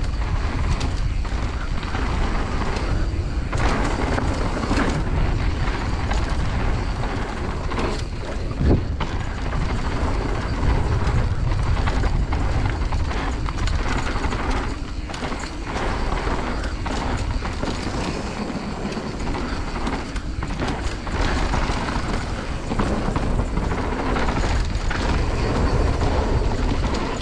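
Mountain bike riding fast over rough, loose dirt: a steady low rumble of tyres and air, broken by constant rattling knocks from the bike over bumps, with a harder knock about eight and a half seconds in.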